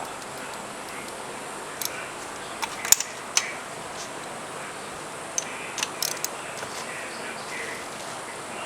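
Scattered sharp metallic clicks and clinks from hand tools being handled on an engine under teardown, over a steady background hiss; the clicks come in small clusters, loudest about three seconds in.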